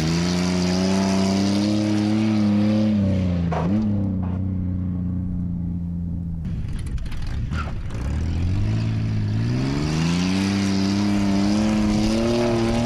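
Ford Explorer's engine revving hard under acceleration. Its pitch climbs and holds high, drops away about halfway through, then climbs and holds high again, over a steady hiss.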